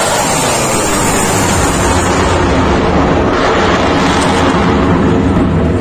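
Loud, steady jet noise from a Dassault Rafale fighter's twin turbofan engines as it flies overhead and away.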